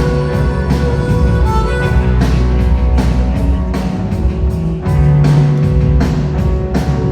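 Live rock band playing an instrumental passage: electric guitars, bass and drums at full volume through a venue PA.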